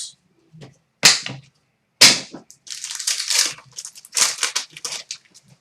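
Foil trading card pack wrappers being torn open and crumpled: two sharp rips about one and two seconds in, then a run of irregular crinkling.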